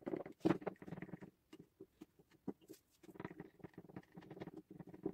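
Wooden stick stirring epoxy resin in a small glass cup, scraping and clicking against the glass in irregular runs with short pauses, with one sharper click about half a second in.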